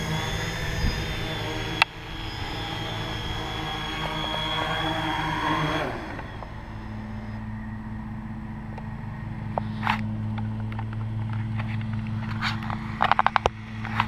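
Hexacopter's electric motors and propellers humming steadily while it hovers. About six seconds in, the pitch drops and the sound settles into a lower, quieter steady hum. A sharp click comes near two seconds, and several knocks come near the end.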